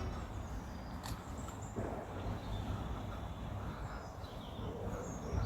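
Outdoor woodland ambience: a low rumble on the microphone with scattered faint bird chirps and a single sharp click about a second in. A pigeon starts cooing softly near the end.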